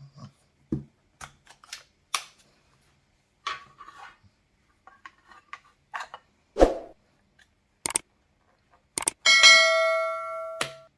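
Scattered clicks and light taps of a phone and its case being handled, then about nine seconds in a sharp strike with a bell-like metallic ring that fades over a second and a half.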